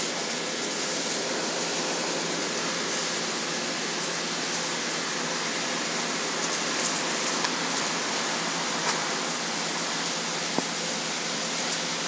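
Steady hiss, with a couple of faint small clicks in the second half as a float and a tapered toothpick stopper are handled.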